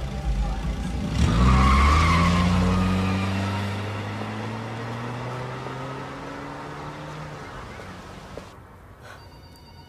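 A 1980s Ford Fiesta hatchback pulling away hard, its engine revving with a brief tyre squeal about a second in, then driving off and fading into the distance.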